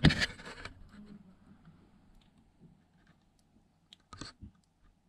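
A short scrape and knock at the start, then mostly quiet with a few faint clicks and a brief rustle about four seconds in: handling noise as the camera is moved about among the joists and rubble under the floor.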